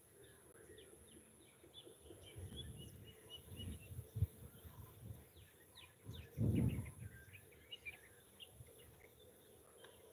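Outdoor ambience of birds chirping with many short high calls and a steady high insect whine. Low muffled bumps come and go, the loudest about six and a half seconds in.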